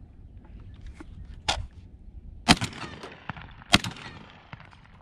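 Two shots from an AR-12 semi-automatic 12-gauge shotgun, about a second and a quarter apart, each sharp and loud with a short echo after it. A fainter knock comes about a second before the first shot.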